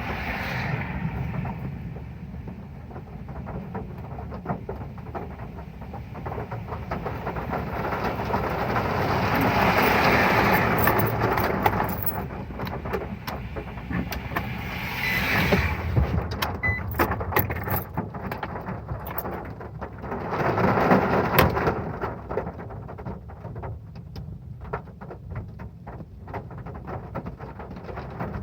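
Heavy rain drumming on a metal roof: a dense patter of drops with many sharp individual ticks, swelling louder around ten, fifteen and twenty-one seconds in.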